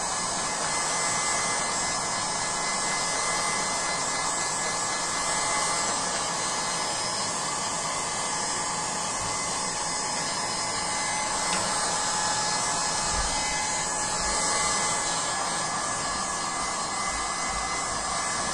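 Electric hot-air dryer blowing steadily, with a faint steady whine in its airflow, drying fresh paint.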